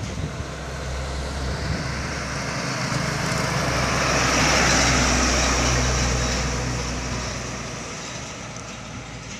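Mitsubishi tanker truck passing close by: its diesel engine hums steadily low and its tyres hiss on the asphalt. The sound grows louder to a peak about halfway, then fades as the truck drives away around the bend.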